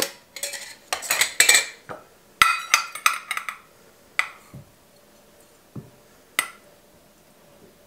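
A glass mason jar's metal screw lid being twisted off, then scrapes and clinks of glass and a stainless steel measuring cup as almond flour is poured; a few single clinks follow, spaced out, before it goes quiet.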